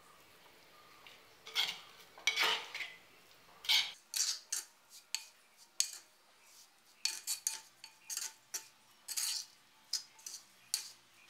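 A metal spoon stirring spice-coated raw clam meat in a black pot, scraping and clinking against the pot in short, irregular strokes that begin about a second and a half in.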